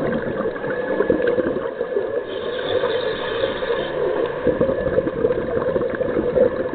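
Underwater scuba sound through a camera's waterproof housing: a continuous bubbling, crackling rush of divers' exhaled bubbles and regulator breathing. A higher hiss rises over it for about a second and a half in the middle.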